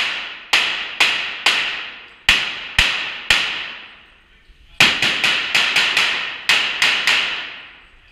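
Pistol shots fired in strings, each with a long echoing tail in the large metal building. About seven shots come at an even pace, then a pause of a second and a half, then a faster volley of about ten.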